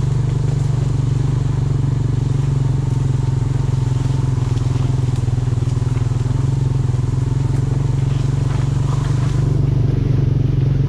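A vehicle engine running steadily, a constant low drone that gets a little louder near the end.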